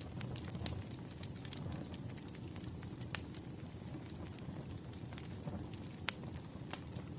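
Firewood burning with a steady low rumble and scattered sharp crackles and pops. The loudest pops come about three and six seconds in.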